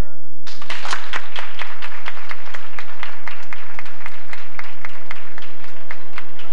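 Audience applauding, the clapping breaking out about half a second in as the music stops; music starts again faintly under the clapping near the end.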